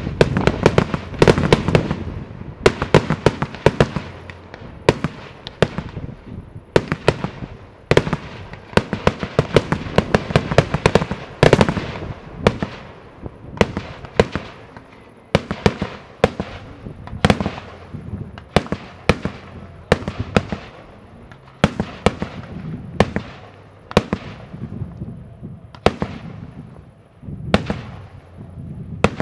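Aerial fireworks shells bursting: a dense run of sharp bangs and crackles for roughly the first twelve seconds, then single bangs about once a second, each trailing off briefly.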